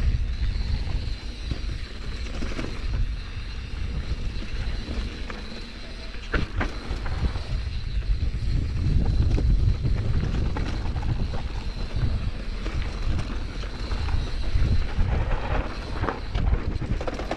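Mountain bike riding over rough singletrack, heard as a heavy, fluctuating rumble of wind on the microphone with tyre and trail noise, and a few sharp knocks from the bike over bumps.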